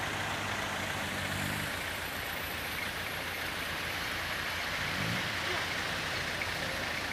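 Vehicle engines idling and creeping along, over a steady rushing noise. An engine note holds steady for the first second and a half, and another rises briefly about five seconds in.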